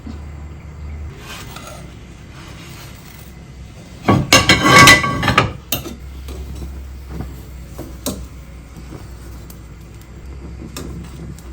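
Dishes and utensils clinking and clattering in a kitchen, with a louder rattling clatter lasting about a second about four seconds in. A low steady hum runs underneath.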